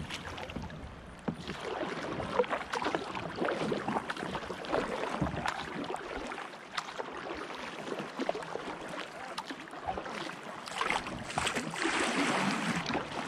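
Kayak paddle strokes dipping and splashing in river water, with water slapping about the hull; the splashing is a little louder near the end.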